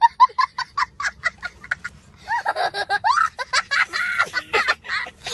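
A young child laughing hard. It opens with a rapid run of short, high giggles, then about two seconds in turns to longer squealing laughs that rise and fall in pitch.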